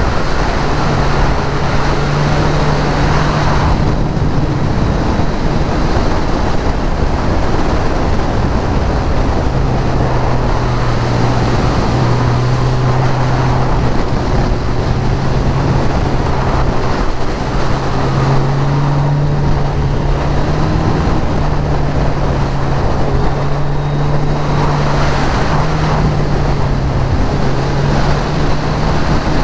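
Sport motorcycle's engine running at a steady cruise, its pitch shifting a little up and down with the throttle, under a heavy rush of wind noise over the microphone.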